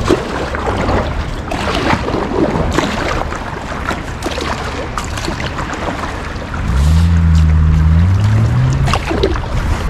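Choppy river water rushing and splashing around a kayak, with paddle splashes, in strong current; wind noise on the microphone. About seven seconds in, a low droning tone sounds for about two seconds and rises in pitch near its end.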